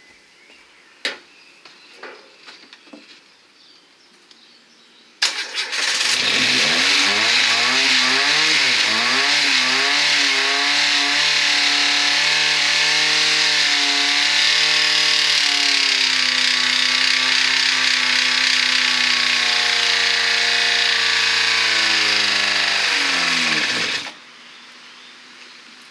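Renault Clio 1.2 Energy four-cylinder engine, run without oil or coolant, starting up after a few small clicks and running loudly with a strong hissing noise, its pitch wavering at first and then holding steady, before it stops suddenly near the end.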